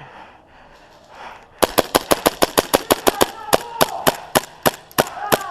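Airsoft guns firing: a rapid string of sharp cracks, about six a second, starting about a second and a half in.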